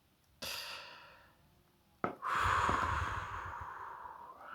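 A person takes a short breath, a single sharp snip of bonsai shears sounds about two seconds in, then a long sigh that slowly fades.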